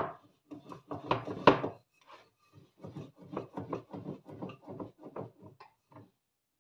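Wooden rolling pin rolled back and forth over small pieces of dough, rolling out momo wrappers: a quick series of short rubbing strokes, loudest in the first two seconds, then steady at about three a second before stopping shortly before the end.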